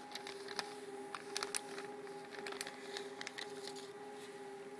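Crinkling and crackling of a metallized anti-static bag being handled as a circuit board is worked out of it: a scatter of sharp crinkles over a steady background hum.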